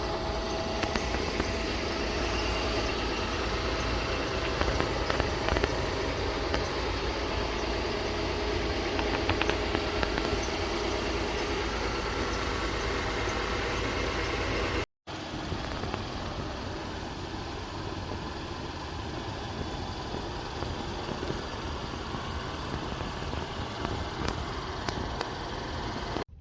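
Car engine idling steadily, with a brief break about halfway through.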